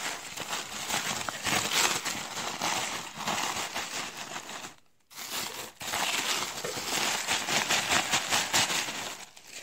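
Pink tissue paper crinkling and rustling as a wrapped item is pulled from crinkle-cut paper shred and unwrapped, a continuous crackly rustle with a brief break about halfway.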